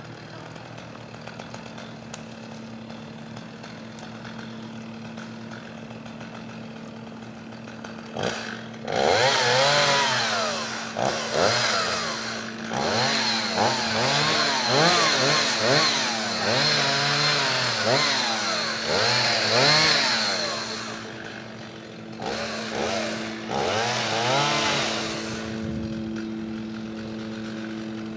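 Gas chainsaw idling steadily, then revved hard again and again from about eight seconds in, its pitch rising and falling with each cut, before settling back to idle near the end.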